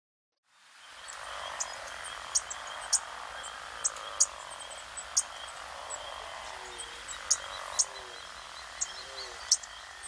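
Wetland ambience fading in after a brief silence: a steady hiss with many short, sharp high chirps scattered through it, and faint low sliding notes repeating in the second half.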